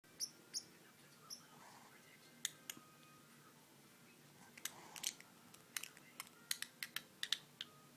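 Green-rumped parrotlet making short, sharp, high-pitched chirps and clicks, a few spaced out at first and then a quicker irregular cluster in the second half.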